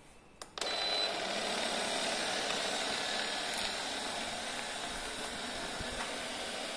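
Vestel V-Bot robot vacuum cleaner starting up: a short click, then about half a second in its suction motor and brushes start and run with a steady noise.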